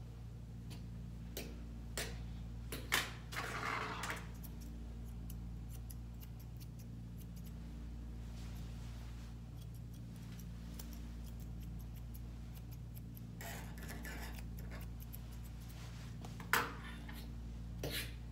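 Grooming tool worked through a West Highland White Terrier's coat: scattered sharp clicks and short scratchy raking passages, over a steady low hum.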